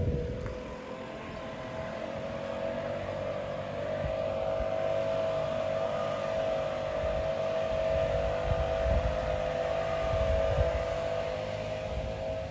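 A steady mechanical whine of two close tones that waver slightly, with wind gusts buffeting the microphone.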